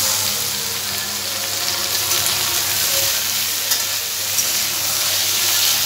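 Chopped raw chicken sizzling in hot mustard oil with fried onions in a kadai, loud as soon as it goes in, and stirred with a spatula that clicks lightly against the pan a few times.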